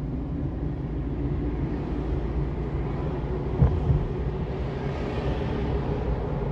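Car driving along a road, heard from inside the cabin: a steady rumble of engine and tyre noise, with one brief knock about three and a half seconds in.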